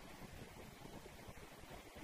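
Faint, steady road and engine noise of a car driving slowly in traffic, heard from inside the cabin through a dashcam microphone.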